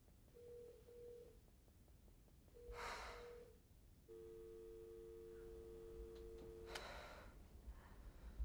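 Telephone ringback tone heard through the phone's earpiece: two double rings in the British ring-ring pattern, then about four seconds in a steady two-note tone that lasts nearly three seconds. A breath can be heard around the second ring pair, and another sharp breath near the end of the steady tone.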